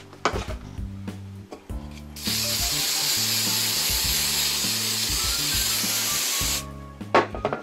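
Aerosol can of hairspray spraying in one steady hiss of about four seconds, starting about two seconds in, laying a tacky coat on a model pine tree to hold ground foam. Background music runs underneath.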